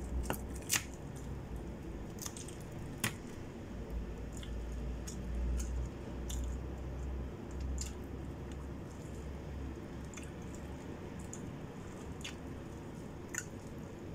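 Scattered crisp crackles and ticks of fried dried fish (daing) being torn apart by hand, with soft squishing of food handled in the fingers and a low rumble swelling in the middle.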